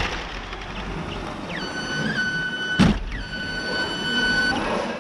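Electric motors of an FRC robot's climber whining as they run. Two high whines each rise briefly in pitch as they spin up and then hold steady, with a sharp clunk between them.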